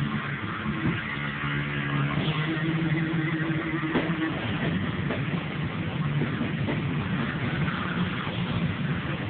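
Loud live band with heavily distorted guitars, recorded on a phone, so it comes out as a dense wash of noise; a few held low guitar notes ring out for a few seconds after the start.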